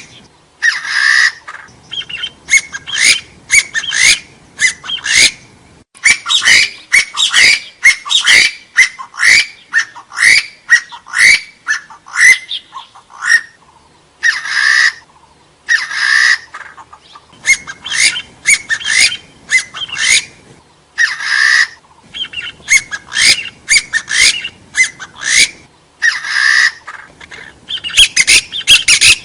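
Gà so (Arborophila hill partridge) calling: long runs of short, loud, rising whistled notes in quick succession, broken every few seconds by brief harsher bursts.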